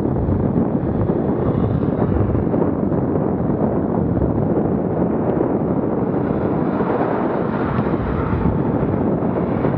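Steady, loud wind noise buffeting the microphone, a continuous low rumble with no distinct events.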